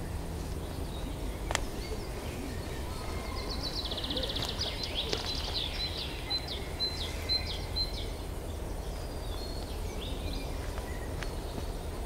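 Wind buffeting the microphone with a steady low rumble, over which a songbird sings from about three seconds in: a quick trill, then a row of repeated high notes. A few short clicks and rustles come from a picnic blanket being spread on the ground.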